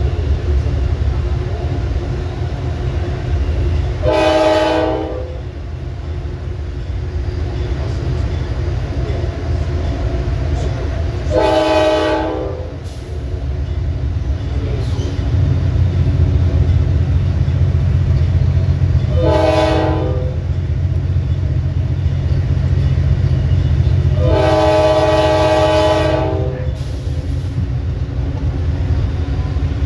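Nathan K5LA five-chime air horn on Amtrak Dash 8-32BWH 503, sounded in four blasts: two of about a second, a shorter third and a longer fourth, the grade-crossing pattern. Under it runs the locomotive's steady diesel engine rumble, which grows louder about halfway through.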